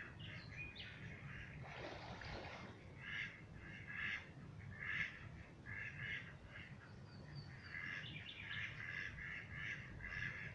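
Birds calling over and over in short nasal calls, about one or two a second and coming thicker near the end, over a steady low rumble. A brief rushing sound comes about two seconds in.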